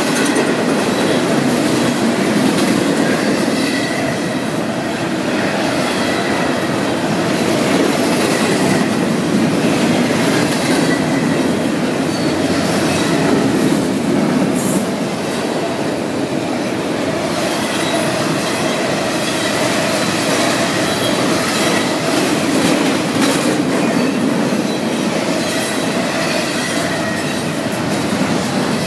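Double-stack container freight train passing at close range: a steady rumble and clatter of steel wheels on rail, with a faint high tone coming and going.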